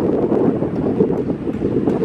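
Steady low rushing noise: wind on the microphone mixed with the distant rumble of a Boeing 737 airliner's jet engines on final approach.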